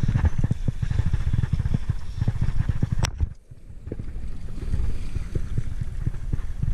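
River water sloshing and splashing close to the microphone, with dense, irregular low knocks and rumbles. A sharp click comes about three seconds in, followed by a brief drop in level.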